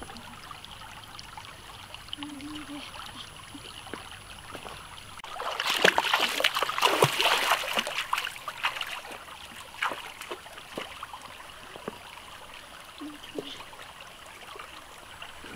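Bare feet splashing through a shallow rocky stream for a few seconds near the middle, over the steady trickle of running water.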